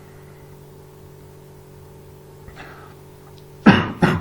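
A person coughs twice in quick succession, two short harsh coughs near the end, over a steady low electrical hum.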